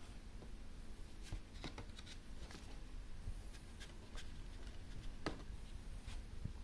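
A Blu-ray's cardboard slipcover being opened and handled by hand: scattered paper rustles and light clicks, the sharpest a little past five seconds in.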